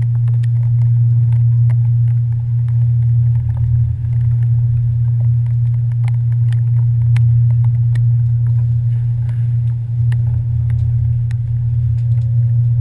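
Passenger ferry's engines running with a steady low drone, with scattered light ticks over it.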